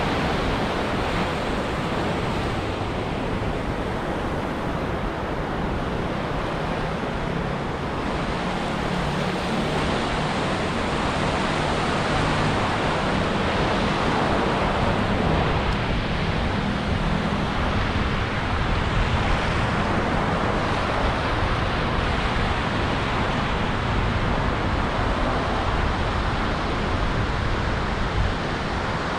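Ocean surf breaking and washing up a beach: a steady rush of waves that swells a little in the middle.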